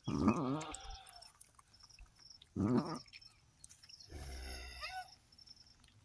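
Goat bleating three times, each a short, wavering bleat: one at the start, another near three seconds in, and a higher-pitched one a little after four seconds.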